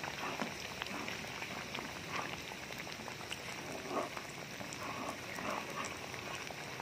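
Hot oil sizzling and crackling with many small pops as battered banana pieces deep-fry.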